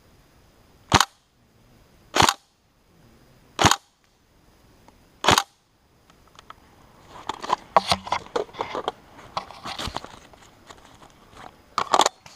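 Airsoft electric rifle, a Tokyo Marui SCAR-H, firing four single shots about a second and a half apart. Then comes a stretch of irregular clicks and rustling, and two quick shots near the end.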